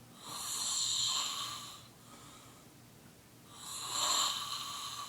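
A man snoring in his sleep: two long snores, each about one and a half seconds, about three and a half seconds apart.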